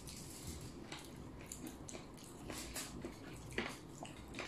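Faint eating sounds: chewing and mouth smacks, with scattered small clicks, a few a little sharper about two and a half to three and a half seconds in.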